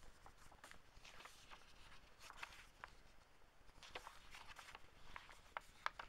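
Faint rustling and soft, irregular flicks of paper as the pages of an old book are turned by hand.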